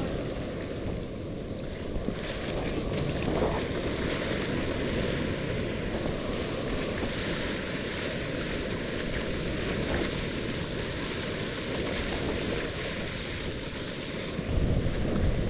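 Ocean surf washing and foaming up a sandy beach, with wind buffeting the microphone in a low rumble that swells near the end.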